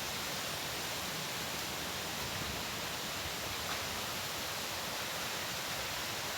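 Steady, even rushing hiss of trickling water and wind.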